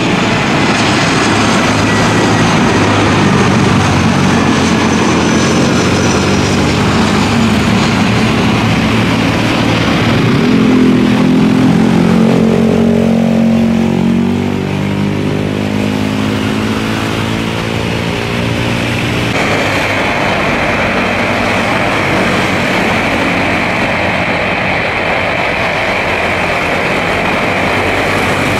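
Airbus A320-214 airliner's jet engines as it lands and passes close by: a loud jet rush whose tones sweep up and down as it goes past, easing off a little about halfway through. After an abrupt cut about two-thirds in, a steady, even jet rush follows.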